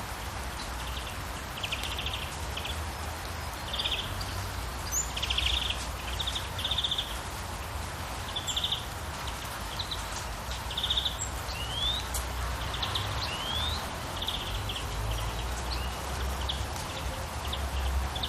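Outdoor nature ambience: small birds calling in short rapid trills, repeated every second or so, with a few quick rising whistles, over a steady hiss and low rumble.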